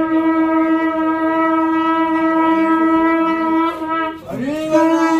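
Conch shell (shankha) blown in one long, steady note. About four seconds in it breaks off, and a new blast starts with a short rising swoop before holding steady again.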